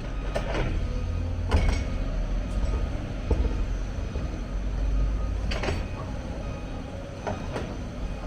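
Hyundai 290 excavator's diesel engine running with a heavy, steady low rumble, with several sharp knocks from the machine at work.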